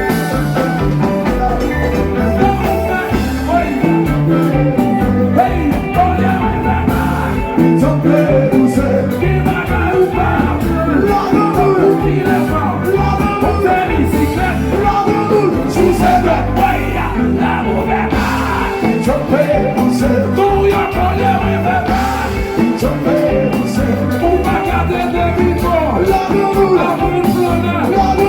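Loud music with a singing voice and a steady beat.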